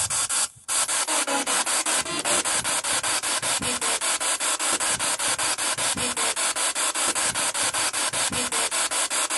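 Spirit box sweeping through radio stations: a loud hiss of static chopped into short pulses several times a second, with brief fragments of radio sound between the pulses. It cuts out briefly about half a second in.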